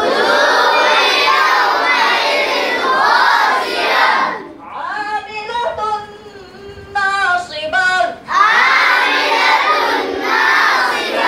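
A large group of boys chants a line of Qur'anic recitation in Arabic in unison. A single boy's voice then recites the next line alone for about three seconds in the middle, and the group chants it back together near the end, in call-and-response.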